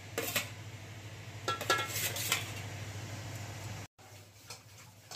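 Steel spoon clinking against a stainless steel pot and plate as fried potatoes are set on the chicken. There are several sharp, ringing clinks, mostly in the first two and a half seconds, over a steady low hum.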